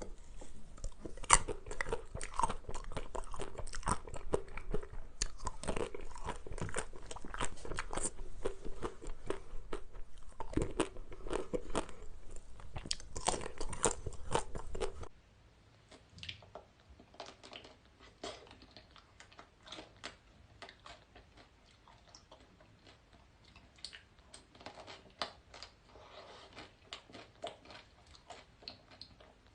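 Close-miked eating of an ice cream dessert: crunchy bites and chewing, dense and fairly loud for about the first half, then dropping suddenly to quieter, sparser chewing clicks.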